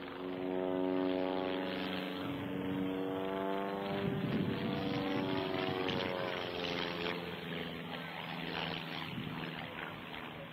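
A CAP 21 aerobatic monoplane's piston engine and propeller droning in flight. The pitch slides down and back up a couple of seconds in as the plane manoeuvres, then steadies and slowly fades.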